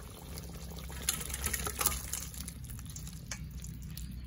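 Meat curry being poured and ladled from the cooking pot into a stainless steel bowl: wet slopping and pouring, with a few sharp clicks.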